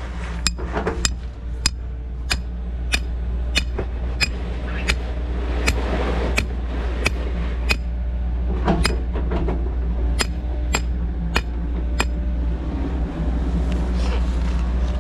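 Hammer striking a steel string nail (Schnurnagel) being driven into the ground. The blows are sharp and metallic, one about every 0.6 s, and stop about twelve seconds in. A steady low engine hum runs underneath.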